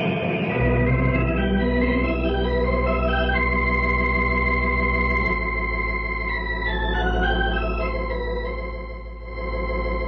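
Organ music bridge: held chords and a slow stepping melody over a deep sustained bass note that shifts about halfway through. A rushing wind-like noise cuts off about half a second in, just as the organ comes in.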